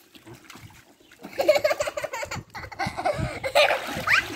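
A young child laughing and giggling in repeated bursts, starting about a second in.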